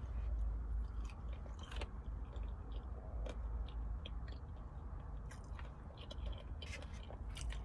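A person chewing food close to the microphone, with short wet mouth clicks scattered throughout, over a steady low hum.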